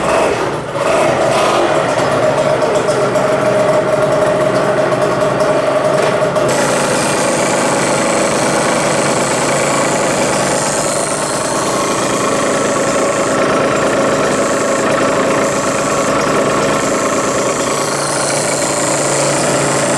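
Yamaha TZM50R's 50 cc two-stroke single-cylinder engine running just after being started. About six seconds in, the steady humming note turns harsher and hissier.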